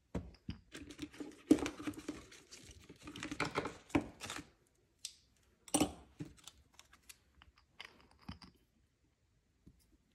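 Small clicks, taps and rustles of nail-stamping tools being handled: a plastic stamper, a polish bottle, a metal stamping plate in its holder and a scraper card being picked up and set down. The clatter is densest in the first few seconds, then thins to a few scattered clicks.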